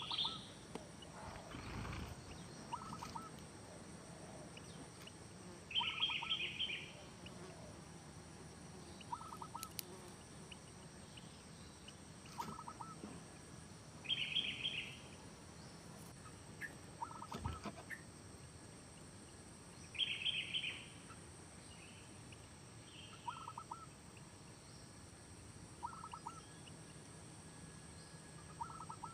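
Birds calling: a short trilled call repeating every six to eight seconds, with shorter, lower chirps every few seconds in between, over a steady faint outdoor background.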